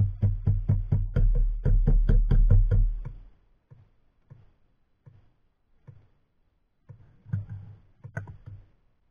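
Background music with a steady percussive beat, about four beats a second over a heavy bass. About three seconds in it drops away to faint, scattered beats.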